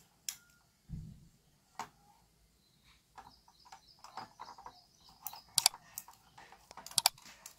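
Scattered small clicks, taps and rustles of hands handling a thin jumper wire and insulating tape against a printed circuit board, the sharpest clicks near the end. A faint, quick chirping sits in the background through the middle.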